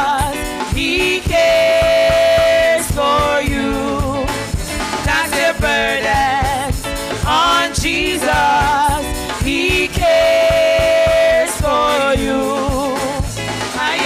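Gospel chorus sung by voices over a band with a steady beat. The same phrase comes round twice, each time ending on a long held note.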